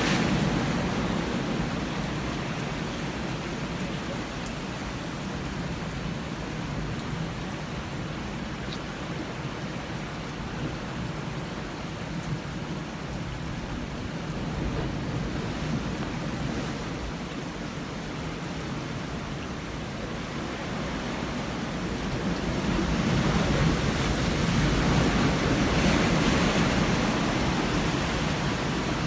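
Heavy surf breaking on a rocky shore, a continuous rushing that grows louder about three quarters of the way through as a bigger set of waves comes in.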